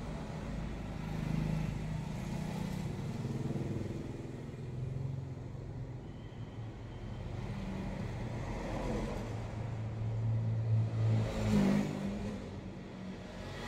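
Motor vehicle engines passing on a street, low and shifting in pitch, swelling to their loudest about ten to twelve seconds in and then easing off.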